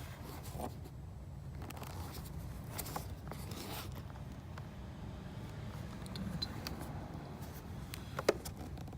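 Faint scraping and rubbing of hands handling engine intake parts, with scattered light ticks and one sharp click near the end, over a steady low hum.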